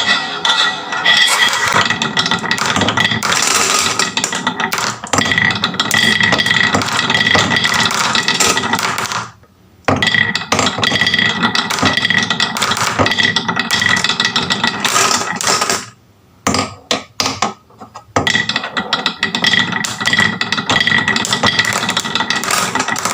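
Many glass marbles rolling and clattering down wooden HABA marble-run tracks in a dense, steady rattle of clicks with a ringing note. It drops out briefly about nine seconds in and thins to a few scattered clicks for a couple of seconds past the middle before the rattle resumes.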